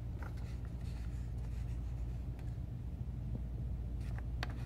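Faint rustling and handling of a sheet of printer paper, a few brief crinkles, over a steady low room hum.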